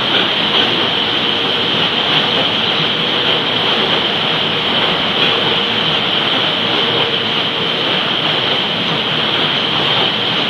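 Empty car-carrier freight wagons rolling past on the rails: a loud, steady rushing noise of wheels on track, with no break in it.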